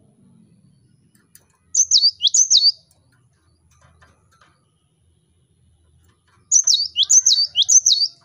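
Cinereous tit (gelatik batu) singing loud, high, sharply falling whistled notes: a phrase of two about two seconds in, then a phrase of three near the end.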